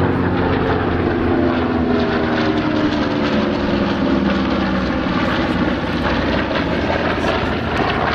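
A formation of three WWII piston warbirds flying past: a P-38L Lightning with twin Allison V-12s, an F4U-4 Corsair and a B-25 Mitchell with radial engines, their propeller engines droning together. The engine note sinks slowly as they go by.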